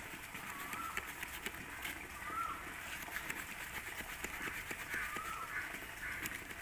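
Victorinox Huntsman's small folding wood saw working through a thick green branch in short rasping strokes, with scattered clicks. A bird repeats a short rising-and-falling whistle every second or two.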